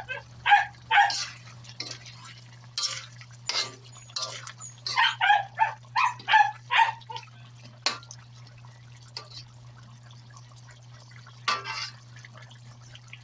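A small dog yapping in short, high barks, a few about a second in and a quicker run of them around five to seven seconds, over a steady low hum. A few sharp clatters, like a utensil on the pan, fall between the barks.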